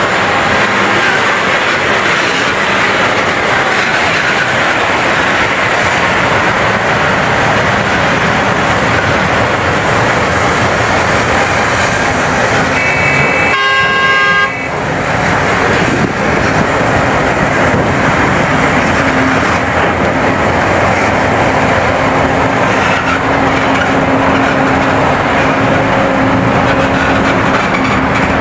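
Large hydraulic excavator's diesel engine running steadily under load as it loads rock into a mining dump truck. A vehicle horn sounds once for about a second and a half midway.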